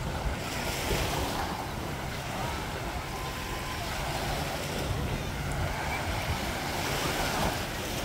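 Surf washing onto a sandy beach in a steady wash, with wind buffeting the microphone.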